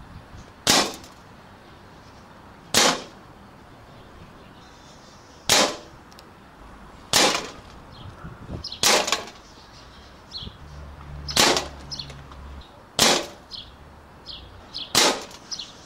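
Air rifle firing eight sharp shots, one every couple of seconds, with smaller clicks between the later shots.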